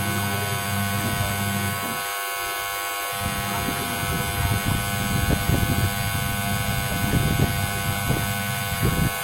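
Washing machine wash motor running a wash cycle. It hums steadily, stops for about a second around two seconds in, then starts again with water churning in the tub.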